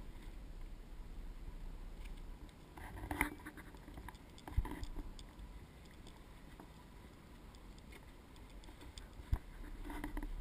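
Small knocks and clatters on a fishing boat over a low, steady rumble, with the sharpest knocks about four and a half and nine seconds in.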